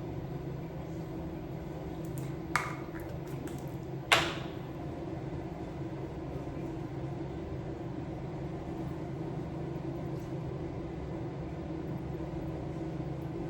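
Steady low room hum with a faint click about two and a half seconds in and a sharper tap with a short ring about four seconds in, from a small hard object being handled.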